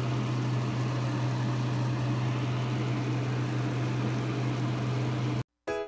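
A steady mechanical hum with a hiss over it, which cuts off abruptly about five and a half seconds in; piano music starts just after.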